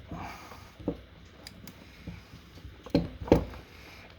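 Hand-tool handling on copper pipe: a few sharp knocks and clicks, the loudest a close pair about three seconds in, as a tubing cutter is set onto the pipe and tightened.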